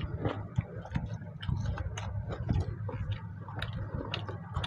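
Fingers mixing and scooping rice and mutton curry on stainless steel plates: irregular small clicks and taps against the metal, with wet eating sounds, over a low steady hum.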